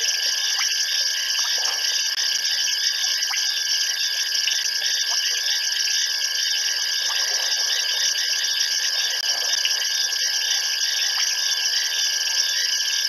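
Dense night chorus of insects: several high-pitched, pulsing trills layered into one steady, unbroken drone.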